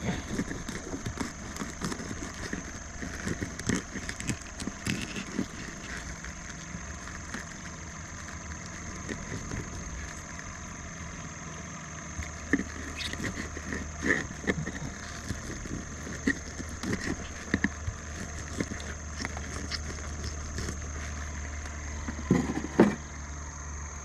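A bluegill being cut up by hand into flapper catfish bait on a plastic cooler lid: scattered small clicks, scrapes and knocks of the metal tool and the fish against the lid. A steady high thin whine and a low hum run underneath.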